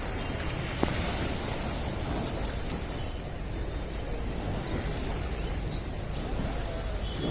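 Steady rushing noise with a low rumble, typical of wind buffeting the microphone outdoors, with a single sharp click about a second in.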